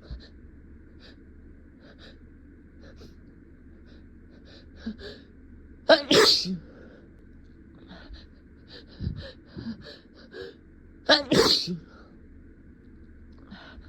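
A person sneezing twice, about five seconds apart, each sneeze a short loud burst, with softer short sounds in between.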